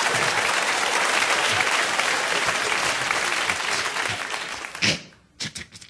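Studio audience applauding steadily, the applause dying away near the end.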